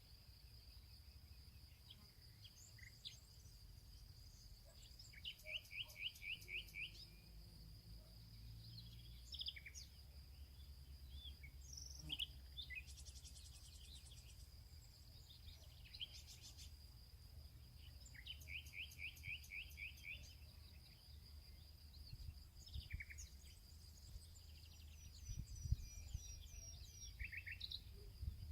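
Birds chirping in short runs of quick repeated notes and scattered calls, faint, over a steady thin high whine and a low hum.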